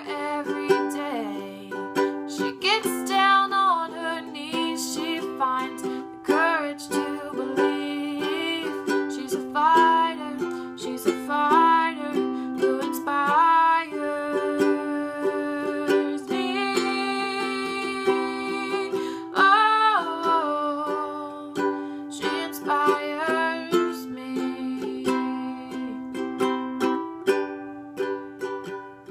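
Ukulele strummed in steady chords, with a young woman's voice singing along over it in bursts.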